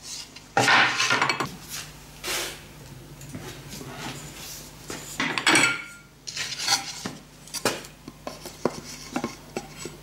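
Steel parts of a Hossfeld-style tube bender and the steel tube being handled: a run of separate metal clanks and scrapes, loudest about a second in and again a little past halfway, then a few sharp single knocks.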